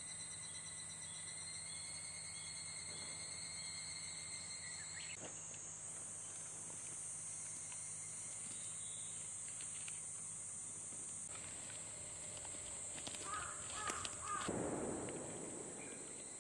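Forest ambience dominated by a steady, high-pitched drone of insects. About 13 seconds in, a few short bird calls come in, followed by a brief rustle.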